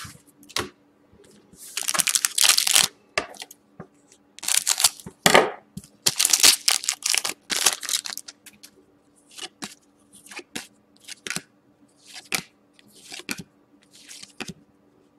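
A hockey card pack's plastic wrapper being torn open and crinkled, in several loud bursts over the first eight seconds. Then come shorter, quieter swishes as the cards are slid one behind another in the hands.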